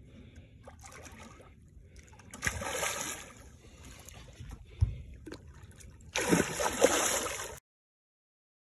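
A hooked fish splashing and thrashing at the water's surface as it is reeled in, in two loud bursts about three and a half seconds apart with a sharp knock between them; the sound cuts off suddenly near the end.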